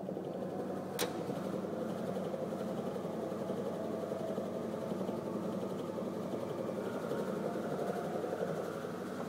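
AC motors spinning a long elastic cord between steel cylinders in a kinetic installation: a steady mechanical whir. There is one sharp click about a second in.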